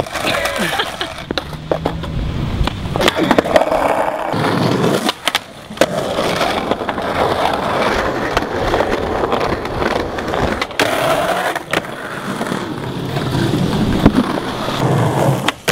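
Skateboard rolling on rough concrete: a steady rumble from the wheels, broken several times by sharp clacks of the board striking the ground.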